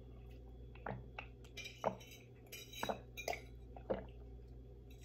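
Cutlery clinking lightly against a plate now and then while eating: about half a dozen short, separate clicks.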